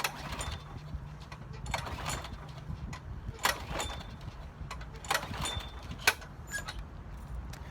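Scattered short metallic clanks and rattles, five or six of them, as a lawn mower is handled and checked, over a steady low hum.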